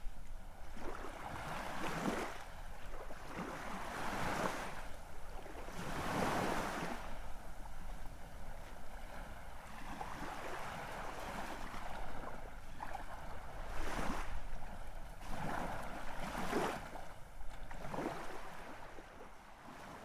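Sea waves breaking and washing in, a rushing noise that swells and falls every couple of seconds, with a few louder crashes, under a steady low rumble that may be wind on the microphone.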